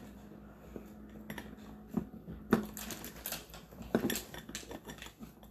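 Small items being handled and set down on a hard surface: a string of light, irregular clinks and knocks.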